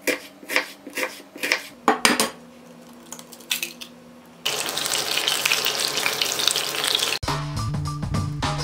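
A knife cutting through an onion onto a wooden board, about two cuts a second. About four and a half seconds in, hot oil sizzling as food fries; this cuts off a little after seven seconds and a short music jingle takes over.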